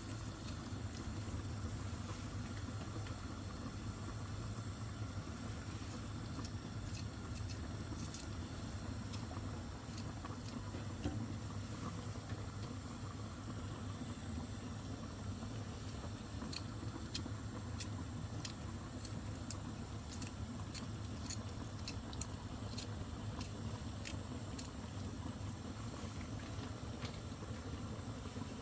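Kitchen sounds over a steady low hum: scattered light, irregular clicks and ticks through most of the stretch while tomato is cut up into a pot of fish on the stove.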